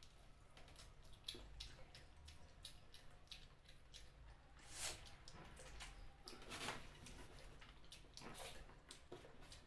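Faint wet chewing and sucking noises of someone eating chicken feet in spicy curry, with many small clicks and three louder wet bursts about five, six and a half and eight and a half seconds in.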